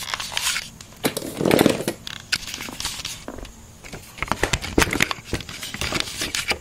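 Handling noise: scattered clicks, knocks and rustling, with a longer, louder rustle about a second and a half in and a run of sharp clicks later on.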